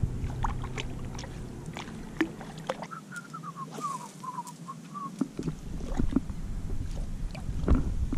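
Small boat sounds: water lapping and scattered light knocks and clicks against the hull over a steady low hum. About three seconds in the hum drops away for two seconds while a quick run of faint chirps falls in pitch.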